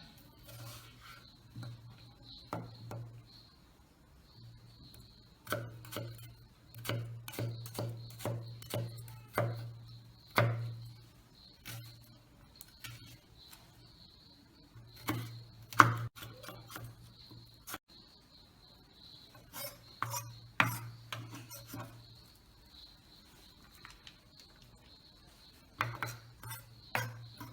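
Knife chopping onion on a cutting board: irregular strikes of the blade against the board, each with a low knock, in runs of quick cuts broken by pauses, the loudest strike about 16 s in.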